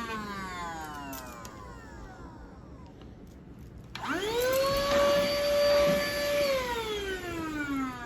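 SIUMXR cordless handheld vacuum's motor winding down after being switched off, then switched on again about four seconds in: it whines up quickly to a steady pitch, runs for a couple of seconds and winds down again as it is switched off.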